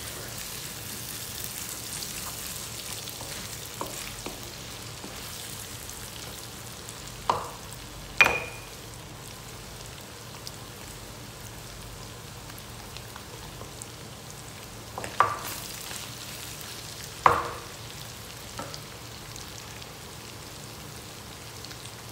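Chopped meat and onions sizzling and frying in a nonstick pan while being stirred with a wooden spatula, with four sharp knocks (two around the middle, two later on) as the spatula strikes the pan.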